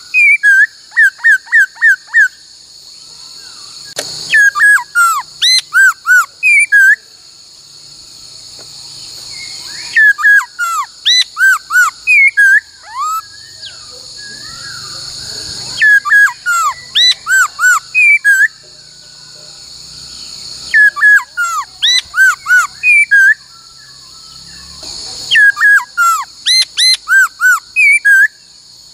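Laughingthrush singing loud phrases of quick, clear whistled notes sweeping up and down, each phrase a few seconds long and repeated about every five to six seconds. A steady high insect chorus of crickets or cicadas runs underneath.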